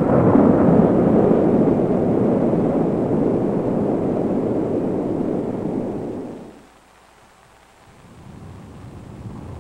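Loud, steady storm noise: rushing wind with a low rumble. It fades out about six and a half seconds in, and after a moment of near silence a fainter rushing noise comes back.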